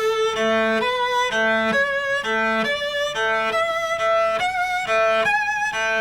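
Cello bowing an ascending A major scale in which every scale note alternates with the open A string, used as a pitch reminder. The notes change about twice a second, and the scale notes climb step by step above the repeated open A.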